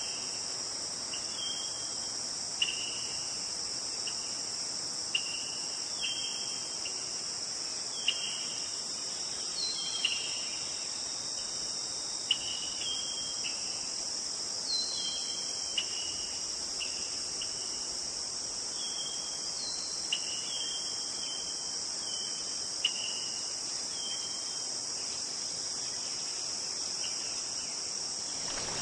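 Steady high-pitched chorus of crickets, with short, slightly falling chirps repeating about every second over it, some starting with a sharp click.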